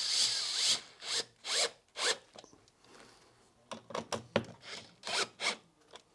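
A hand tool rasping in repeated strokes: one long stroke, then three shorter ones about half a second apart, and after a pause of about a second a quicker run of short strokes.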